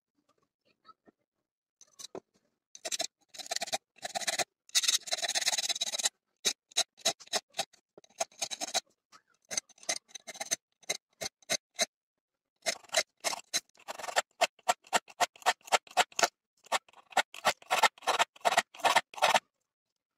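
A small hand file scraping metal as it sharpens the cutting edges of an old auger bit, in quick short strokes several a second, coming in bursts with brief pauses and a few longer strokes.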